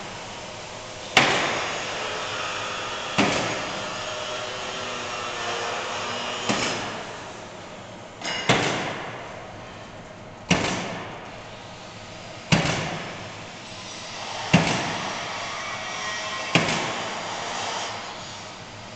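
Gantry-mounted nail gun of an automated wall-panel machine driving nails through plywood sheathing into the framing, a sharp bang about every two seconds, eight in all, over a steady machinery hum.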